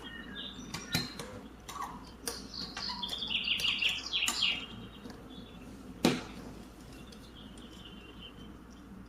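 Sharp clicks of small plastic toy pieces being handled and set down, the loudest about six seconds in, with bird chirps in the background.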